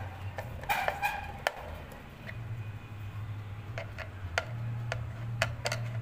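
A screwdriver tightening a screw through a wire cage roof into a wooden nest box: a run of sharp, irregular metallic clicks and ticks, some with a brief ringing in the first second or so. A steady low hum runs underneath.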